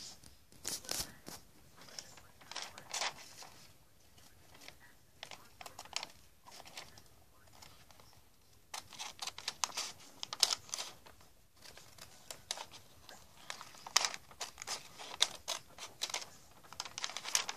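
Scissors cutting through paper in several runs of quick snips, with quieter paper rustling between them.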